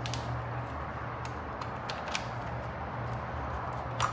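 Steady low hum with a background hiss, and a few faint clicks and rustles from an electrical wire being fed through plastic wiring loom, with a sharper click near the end.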